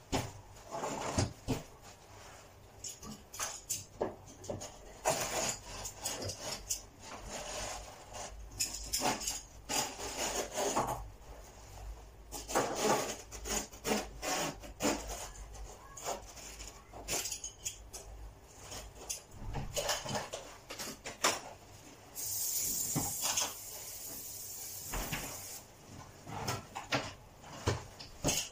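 Carpet fitting by hand: irregular knocks, taps and scraping of tools and carpet as it is worked into the edge at the base of a wardrobe. A steady hiss lasts a few seconds about three-quarters of the way through.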